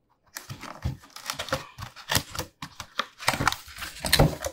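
Cardboard packaging box being opened by hand: flaps and packing tape pulled apart, giving a quick irregular run of crinkles, tearing and light knocks that starts about a third of a second in.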